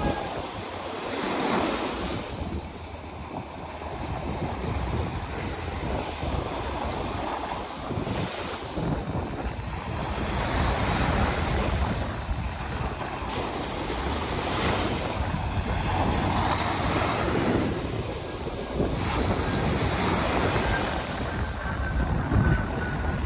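Small surf breaking and washing up a sandy beach, the wash swelling and easing every few seconds, with wind buffeting the microphone.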